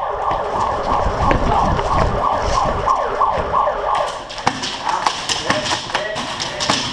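A loud, wavering high-pitched wail, siren-like, for about the first four seconds over heavy low thumps. Sharp snapping shots of airsoft guns run through it and carry on after the wail fades.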